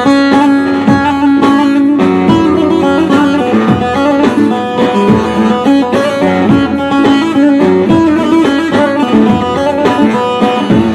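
Bağlama (saz) played with a pick: a continuous run of fast plucked notes, an instrumental passage of a Turkish folk tune (türkü).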